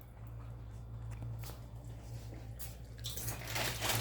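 A steady low hum under faint rustling and small clicks; the rustling grows louder in the last second.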